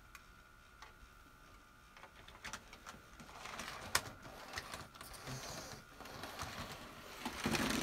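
Faint scattered clicks and taps of a model-railway locomotive and tender being handled and hooked up, with one sharper click about four seconds in and a louder bout of handling near the end, over a faint steady high hum.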